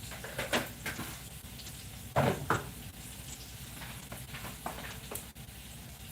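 Cooking at the stove: a utensil knocks and scrapes against a pan several times, the loudest pair of knocks about two seconds in, over light sizzling and a steady low hum.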